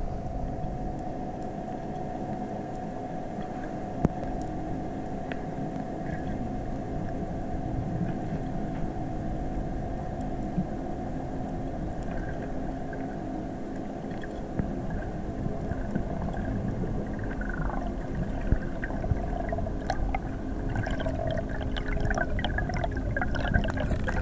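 Sea heard underwater: a steady low rumble with a constant hum running under it. In the last several seconds, water near the surface sloshes and bubbles more busily.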